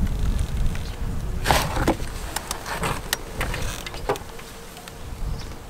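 Low wind rumble on the microphone, with a short rustle about one and a half seconds in and a few scattered sharp clicks of handling.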